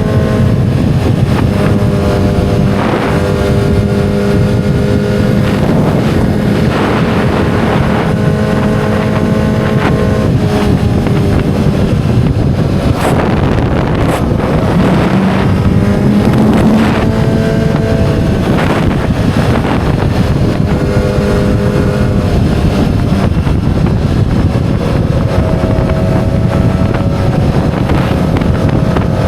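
2007 Yamaha YZF-R6's inline-four engine running under way, its note holding steady for stretches and shifting up and down several times with the throttle, with wind noise on the microphone.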